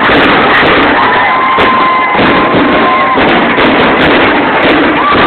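Fireworks grand finale: a very loud, continuous barrage of shell bursts and crackle, with whistling fireworks gliding up and down in pitch over it.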